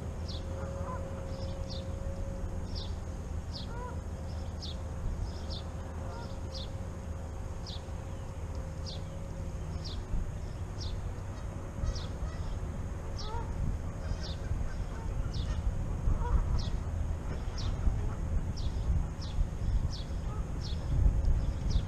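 Geese honking off and on at a distance, over a high, short chirp that repeats about every half-second. A low rumble grows louder near the end.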